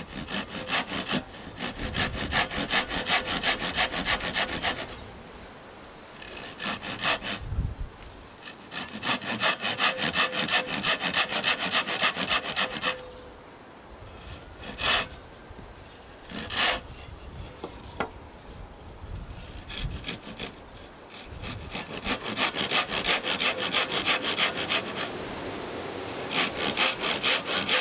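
Handsaw cutting across a thin strip of light softwood pallet wood in quick, rhythmic back-and-forth strokes, making the shallow cuts for a notch. The sawing comes in several runs with short pauses, and there are a couple of sharp knocks during a longer pause in the middle.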